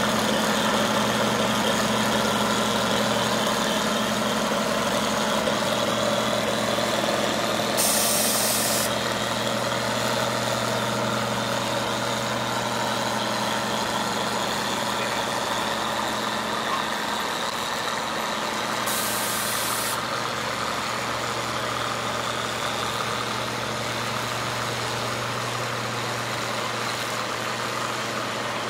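Cockshutt 40 tractor's engine running steadily under load while pulling a weight-transfer sled, easing slightly in loudness over time. Two short hisses, about ten seconds apart, cut in over it.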